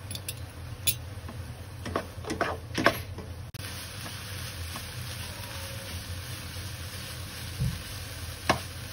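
A spatula scraping and knocking against a non-stick pan as nam (Thai fermented pork) and scrambled egg are stir-fried dry, over a faint sizzle. There are several sharp knocks in the first three seconds and one more near the end.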